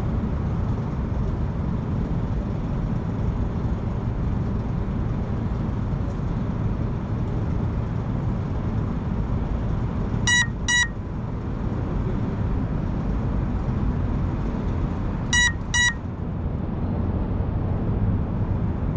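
Crashed FPV quadcopter beeping to be found: two double beeps, short and high-pitched, about five seconds apart, over a steady low background rumble.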